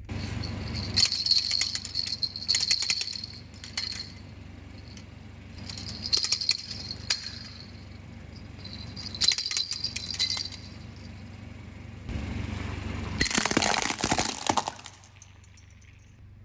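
Plastic hand-clapper rattle toys rattling and clacking in four bursts. The last, about thirteen seconds in, is the loudest and fullest, as the toys crack apart.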